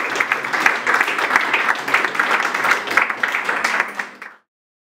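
Audience applauding, dense steady clapping that cuts off abruptly about four seconds in.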